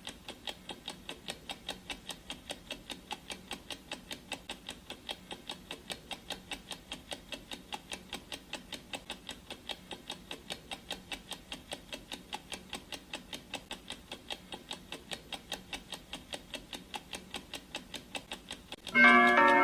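Clock ticking sound effect, about four even ticks a second, then near the end a gong strikes loudly and rings with several tones at once, signalling that the five-minute countdown has run out.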